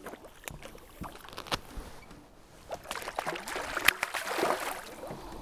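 A hooked walleye splashing and thrashing at the water's surface beside a fishing boat, with scattered splashes and knocks that grow busier about three seconds in. A sharp, louder splash near four seconds comes as the fish is lifted and drops back into the water.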